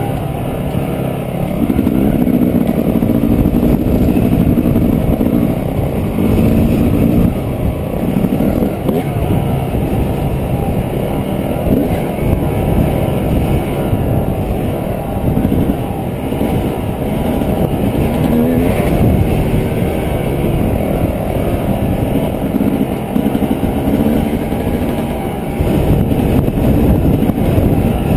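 Dirt bike engine running under way on a trail ride, its pitch rising and falling as the throttle is opened and closed.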